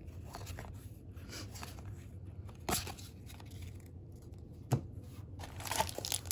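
Baseball trading cards being handled, with faint rustling and two short clicks. Near the end a pack's wrapper starts to crinkle and tear as the next pack is opened.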